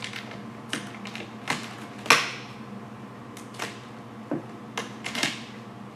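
Vinyl wrap film being worked by hand on a car hood: a run of short, irregular scrapes and crackles from the hard card and the film, the loudest about two seconds in.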